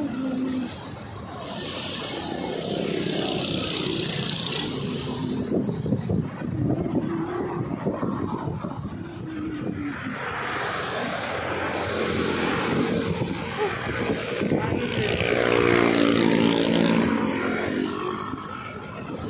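Motorcycles and other road traffic passing, with wind buffeting the phone's microphone. One engine passes close by about three quarters of the way through.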